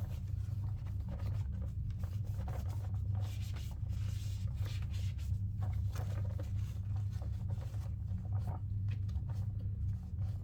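Cloth wiping and rubbing over the plastic body of a Henry vacuum cleaner, a run of short irregular scrubbing strokes, over a steady low hum.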